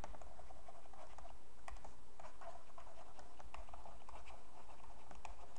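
Stylus tapping and scratching on a tablet while words are handwritten: a run of quick, irregular ticks over a steady low hum.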